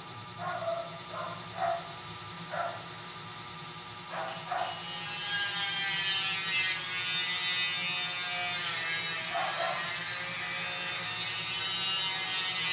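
HP EliteBook 830 G5 laptop's cooling fan spinning up at power-on, a thin rising whine in the first second, then a loud steady rush from about four seconds in.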